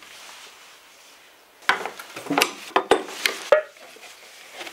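Metal paint tin being opened: a run of sharp metallic clicks and knocks from its lid, starting about two seconds in, the last with a short ring.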